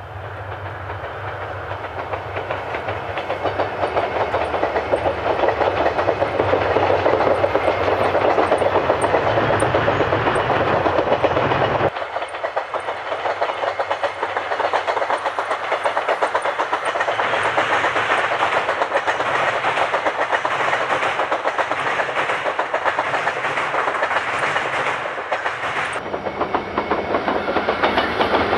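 An electric train running along the track, with wheels clicking over the rail joints. The sound grows louder over the first few seconds as the train nears, and changes abruptly twice, about 12 seconds in and again near the end.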